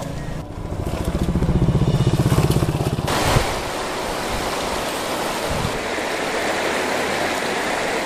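A low, fast-pulsing engine rumble swells for the first three seconds, then cuts off abruptly. Steady rushing of a shallow river running over stones and small rapids follows.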